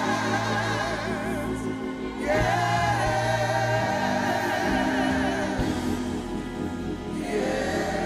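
Gospel choir singing sustained notes with vibrato over a steady low accompaniment, moving to a new phrase about two seconds in and again near the end.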